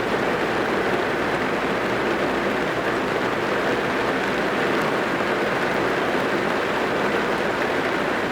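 Steady rain drumming on a car's roof and windows, heard from inside the cabin as a dense, even patter.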